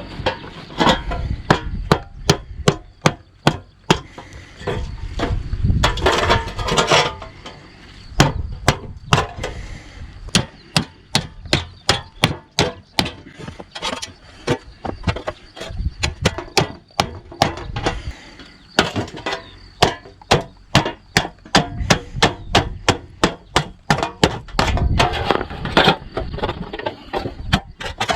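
Rapid repeated whacks, about two to three a second with a couple of short breaks. A Victorinox Forester pocketknife is being batoned, its spine struck again and again with a brick to drive the blade through aluminium metal.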